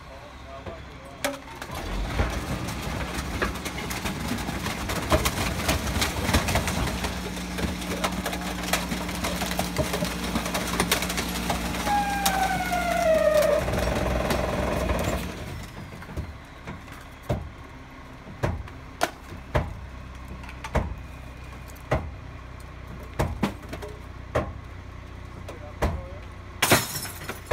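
Rear-loading garbage truck running a compaction cycle: the engine comes up to drive the hydraulics while the packer blade crushes rubbish in the hopper with cracking and snapping, and a squeal glides down in pitch near the end of the crush. After about fifteen seconds the cycle stops and the truck runs quieter, with scattered sharp knocks and clatters of junk going into the hopper.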